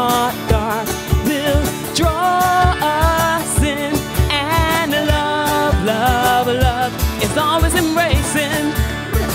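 A band playing a pop song. A wavering lead melody with vibrato rides over a steady kick drum at about two beats a second.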